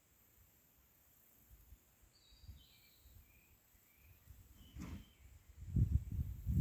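A few short bird chirps about two seconds in, then a sharp click and low, irregular rumbling noise near the end, the loudest part.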